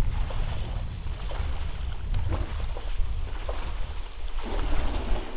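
Water sloshing and splashing, with wind buffeting the microphone as a low rumble; a couple of louder swishes come past the middle and near the end.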